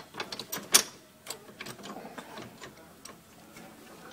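Light metallic clicks and clinks of a steel lift-kit shock-mount plate, U-bolt and cap screw being handled and fitted by hand against a golf cart's leaf spring and brake cable mount. About half a dozen clicks come in the first two seconds, then only faint handling sounds.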